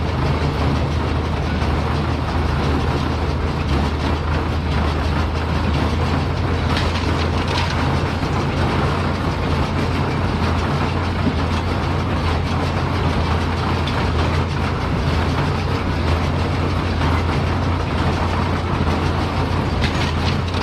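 Tractor engine running steadily while pulling a working John Deere small square hay baler, with the baler's mechanical clatter over the engine's low hum.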